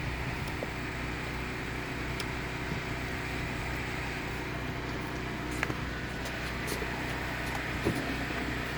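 A steady low machine hum, with a couple of light clicks or taps, one about five and a half seconds in and another near the end.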